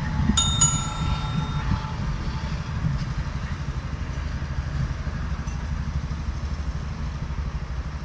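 Steady low outdoor rumble of street traffic, with one bright metallic bell-like ding about half a second in that rings out for about a second.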